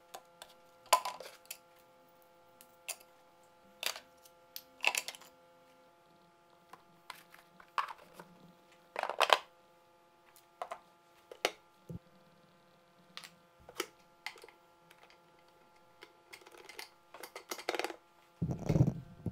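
Plywood cabinet door and its wooden crank-and-linkage locking mechanism being worked by hand: sharp wooden clicks and knocks at irregular intervals, with a heavier thump near the end. A faint steady hum runs underneath.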